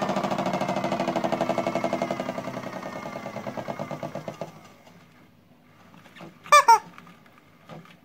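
Small electric motor of a modified Miele toy washing machine spinning its drum with a fast, rattling pulse, slowing and dropping in pitch until it stops about four and a half seconds in. Near the end, two short squeaks from a rubber squeeze toy.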